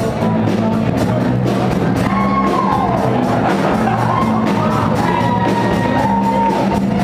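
Live rock band playing: a steady drum beat with electric guitars and bass under a singer's held notes, one sliding down about three seconds in.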